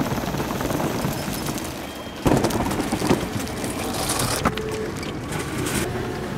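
Airport security X-ray conveyor carrying a plastic bin, heard from inside the bin: a steady rumbling of the belt and rollers, with a sudden knock about two seconds in and then rougher rattling with a few more knocks.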